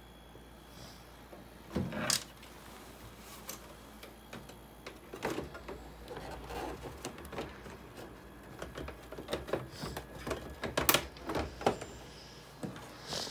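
Irregular clicks, taps and knocks of hands handling the plastic casing and parts of an opened dehumidifier during repair, with louder knocks about two seconds in and again near eleven seconds.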